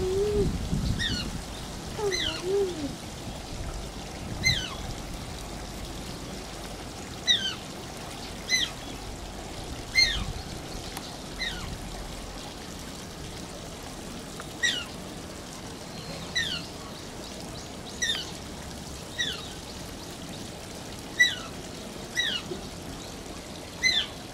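Asian small-clawed otter squeaking: a string of short, high, downward-sliding calls, one every second or two, over a steady trickle of running water.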